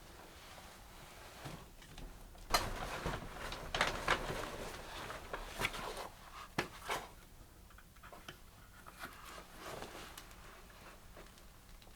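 Objects being handled in a small room: a cluster of clicks, knocks and rustling from about two and a half seconds in, then a few separate sharp knocks, then quieter.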